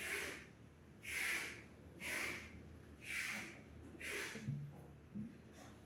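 Five short rasping scrapes about a second apart, from the MI550's plastic screen housing being worked apart by hand.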